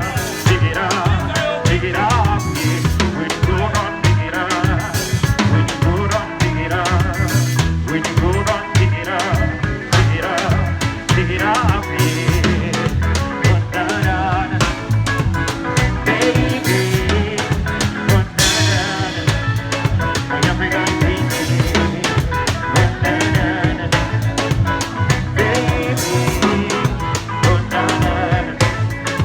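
Live band playing an upbeat song, driven by a full drum kit with snare rimshots and bass drum on a steady beat over bass and other instruments. One louder crash about two-thirds of the way through.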